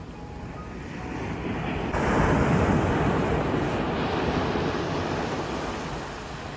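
A sea wave breaking and washing up the shore: a noisy rush that swells, crashes suddenly about two seconds in, then slowly fades away.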